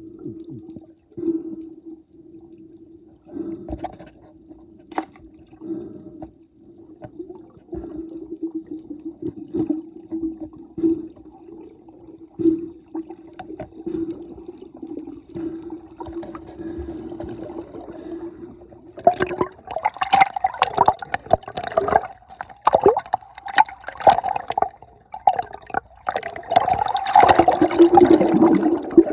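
Underwater sound: a steady low hum with scattered clicks, then, about two-thirds of the way through, loud rushing bubbles and splashing churn the water around the camera.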